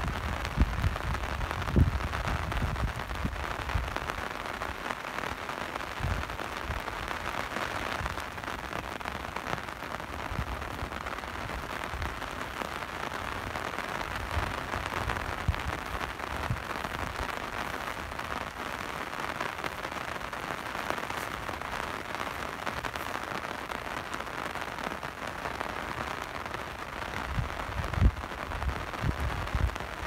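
Steady rain falling, an even hiss, with scattered low thumps at the start and near the end.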